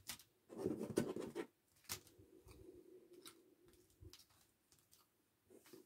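Small acrylic diamond-painting earring charms clicking against each other and the tabletop as they are handled, with a light rustle of plastic packaging. The busiest clatter comes about a second in, then a few fainter clicks follow.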